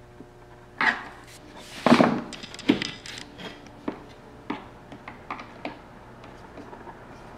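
Wooden bed rails being fitted together by hand: a knock, a louder scrape and rattle, then a run of light clicks and knocks as a screwdriver works at the metal joining bracket.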